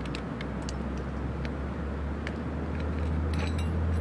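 Low, steady motor-vehicle engine rumble that grows louder toward the end, with a few faint taps from tent pegs being set into stony ground.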